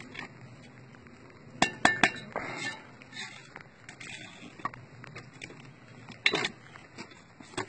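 Hollow clay bricks clinking and knocking as a bricklayer handles and sets them on a wall, in scattered sharp strikes: a quick cluster about one and a half to two seconds in and another just past six seconds.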